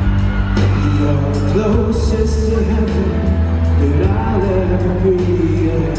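A man singing a slow song live into a microphone over amplified accompaniment, heard through an arena's sound system from the audience.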